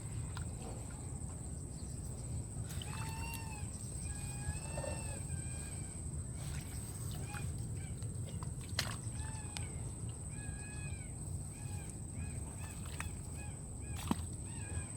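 Several short animal calls, each rising then falling in pitch, in small groups, over a steady low rush and a constant high, thin whine. Two sharp knocks come through, one near the middle and one near the end.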